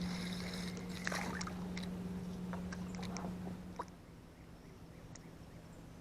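A small motor's steady low hum with scattered light clicks and rattles; the hum cuts off about four seconds in.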